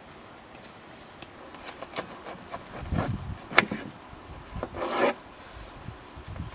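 A knife cutting into a raw head of green cabbage on a wooden board: a few crisp, crunching, rasping strokes in the second half, one of them with a sharp knock.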